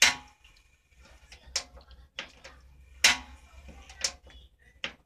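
Gas stove's igniter knob being turned, each turn giving a sharp click with a short ring, about six clicks roughly a second apart: repeated tries to light the burner.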